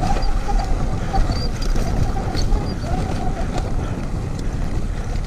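Sur-Ron electric dirt bike under way, its motor whine rising and falling with the throttle over a heavy low rumble from the ground and air, with scattered sharp ticks.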